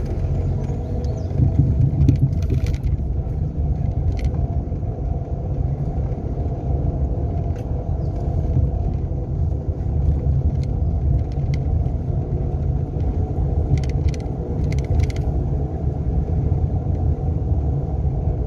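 Renault Sandero being driven, heard from inside the car: a steady low rumble of engine and road noise, with a few faint scattered clicks or rattles.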